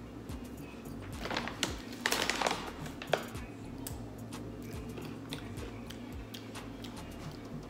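A dark-chocolate-covered pretzel being snapped and bitten: a few short crisp crunches and crackles in the first half, over quiet steady background music.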